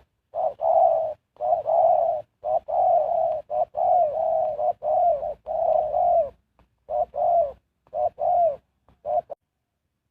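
Spotted dove cooing: a run of low, repeated coos in short phrases with brief gaps, stopping about nine seconds in.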